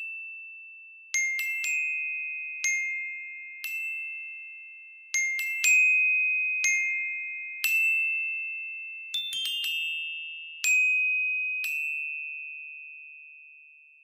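Slow, sparse bell-like chime notes, like a glockenspiel or music box, playing a simple tune on two or three high pitches. Each note rings out and fades slowly, with a few quick runs of two or three notes, and the last note dies away near the end.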